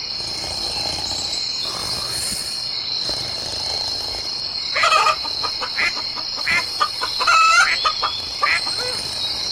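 Rural ambience: a steady high insect drone, with a run of short chicken calls about halfway through.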